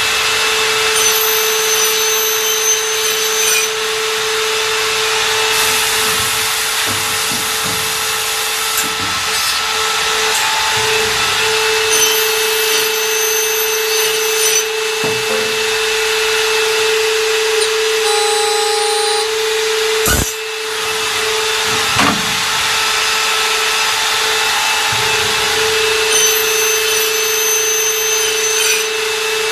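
CNC aluminium profile machining and cutting line running, with a loud, constant machine noise and a steady tone. A higher whine comes and goes three times, about every twelve seconds, and there are two sharp knocks about twenty seconds in.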